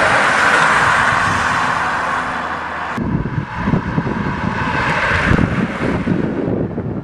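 Wind buffeting the microphone, with the rushing hiss of a bunch of road-racing bicycles passing close for the first three seconds; the sound then changes abruptly to low, gusty wind rumble.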